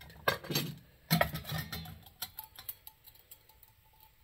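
Stainless steel nesting mess kit pieces clinking and rattling against each other as they are lifted apart: a few sharp clinks in the first two seconds, then lighter scattered ticks that die away.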